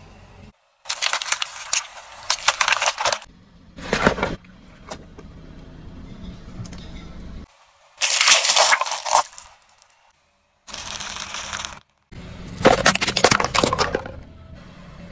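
A car tyre crushing small objects one after another: five separate bursts of crunching and cracking, the loudest near the middle and toward the end, with a steady low hum between them.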